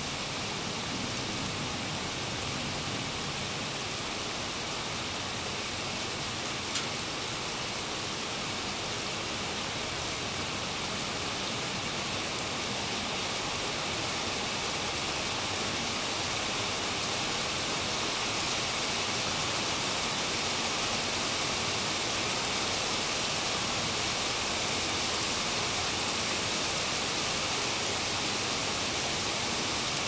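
Steady rain falling on a flooded court, standing water and foliage: a dense, even hiss that grows slightly louder through the second half, with one brief click about seven seconds in.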